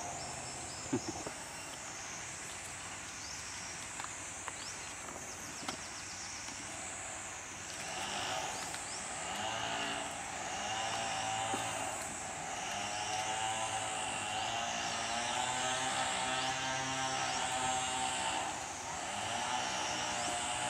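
A high insect drone that swells and fades over and over runs throughout. From about eight seconds in, a steady engine hum joins and grows louder.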